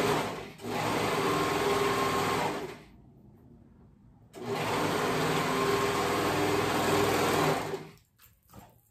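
Brother serger (overlocker) stitching a side seam at a steady speed, in two runs of about two to three seconds with a pause of about a second and a half between them.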